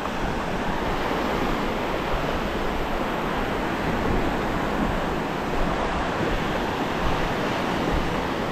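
Ocean surf breaking and washing up the beach: a steady, even rushing noise.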